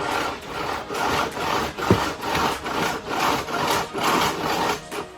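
Power cord being pulled hand over hand out of a Hoover Deluxe Elite Rewind vacuum's cord-rewind reel, rasping as it slides out in about two pulls a second. There is a single sharp knock about two seconds in.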